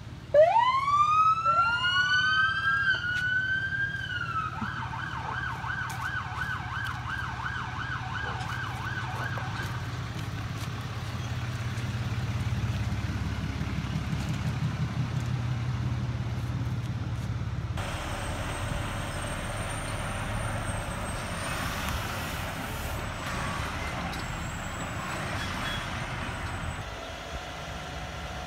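A siren: two rising wails, then a fast warbling yelp for about five seconds, over a low engine rumble. Near eighteen seconds it gives way to a steadier, noisier mix with a faint high whine.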